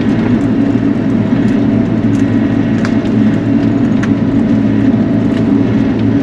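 Bobcat E42 mini excavator's diesel engine running steadily under working load, with a few faint clicks.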